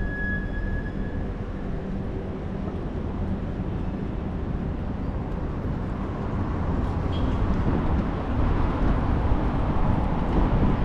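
Street traffic rumble: a steady low drone of vehicle engines and tyres that grows louder in the second half, with a brief thin high tone right at the start.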